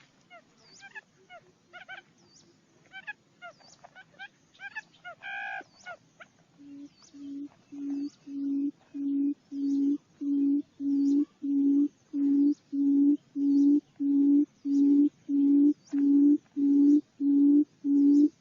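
Barred buttonquail giving its low booming call: a long series of deep hoots, about two a second, that starts a few seconds in, grows louder and then keeps an even pace. Before it, other birds give short chirping calls.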